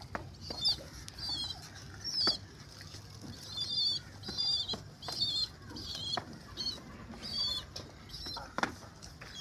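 Two pigeons fighting, their wings slapping and flapping with a few sharp claps. Short, high, squeaky chirps repeat about twice a second throughout, over a low rumble.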